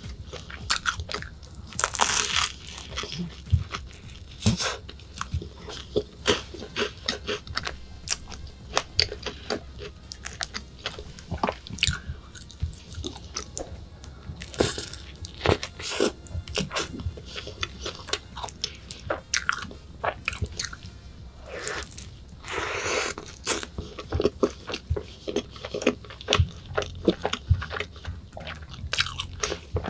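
Close bites into a flaky pastry cone filled with whipped cream and strawberry, the crisp pastry crunching, then chewing with many small sharp crackles.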